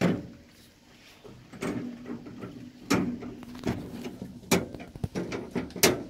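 Dishwasher racks being handled: a sharp knock as the plastic cutlery basket is set against the wire rack, then a run of rattles and bumps from the basket and the rack.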